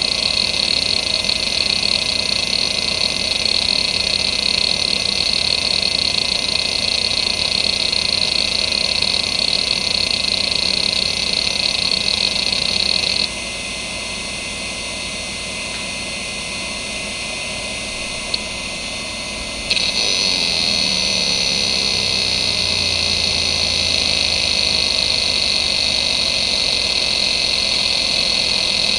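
Seagate ST9144A 2.5-inch hard drive seeking continuously, its heads moving rapidly back and forth in a steady hissing buzz. About 13 seconds in the seek noise stops and the drive runs quieter for about six seconds, with one sharp click, then seeking resumes with a faint tone that slowly drops in pitch.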